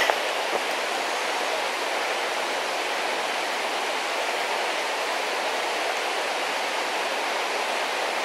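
River water rushing over rocks below the path: a steady, unbroken rush.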